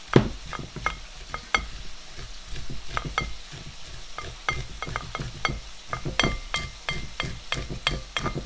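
A knife scraping fresh sweet corn off the cob to draw out the milk: an irregular run of sharp, wet crackling clicks, several a second, with one sharp knock right at the start.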